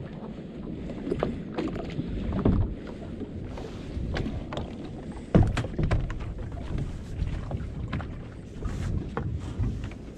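Irregular knocks and thumps on a small fibreglass boat, with a sharp, loud thump about five seconds in, over low wind rumble on the microphone.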